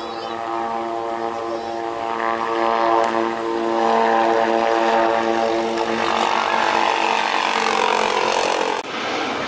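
Propeller aircraft flying past, a droning hum of several steady tones. It grows louder a few seconds in, then its pitch falls as it passes, and it cuts off abruptly near the end.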